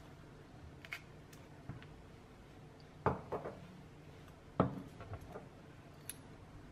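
A few light knocks and clicks of kitchen things being set down, including a glass olive-oil bottle and a wooden pepper mill put on the countertop. The loudest knocks come about three seconds in and again a second and a half later, with small ticks around them.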